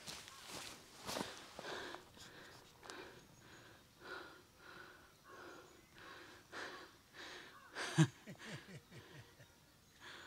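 Footsteps on a dirt path, about two a second, with a person's heavy breathing. About eight seconds in comes a louder short burst, followed by a few short falling vocal sounds.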